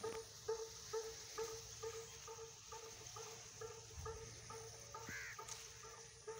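A repeated animal call, a short pitched note about twice a second at a steady pace, with one brief higher chirp about five seconds in.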